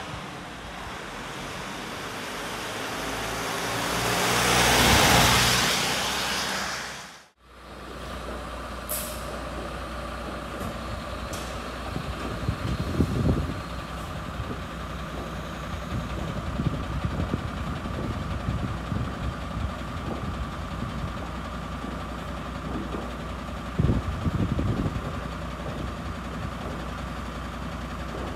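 An emergency vehicle drives past on a wet road, its tyres and engine swelling to a peak and fading away. Then fire engines idle in the station bays, with a few short air-brake hisses and some heavier knocks.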